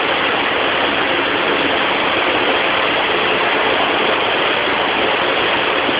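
Automatic car-wash tunnel running: a steady, even wash of noise from its water spray and machinery.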